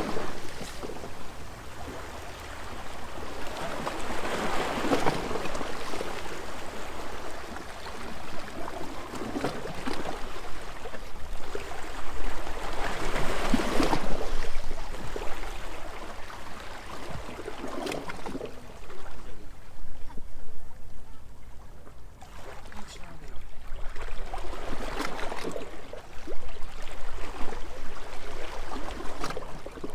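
Small waves washing and sloshing against a stone embankment, each swell rising and falling away every few seconds.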